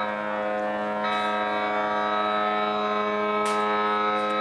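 Several ships' horns sounding together in one long held blast, a chord of steady tones; more higher-pitched horns join about a second in.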